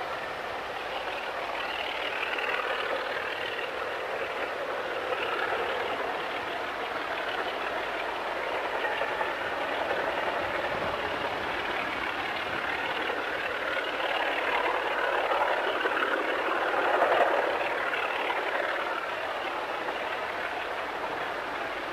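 British Rail Class 27 diesel locomotive's Sulzer six-cylinder engine working hard under load, hauling seven coaches up a 1 in 75 gradient. The sound is steady but swells and eases, growing louder in the second half and loudest about three quarters of the way through.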